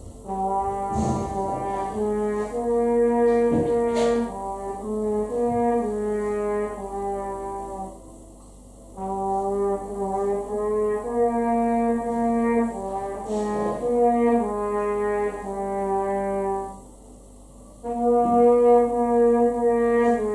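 A horn playing a slow melody of held notes, starting suddenly and going in three phrases with short breaks between them.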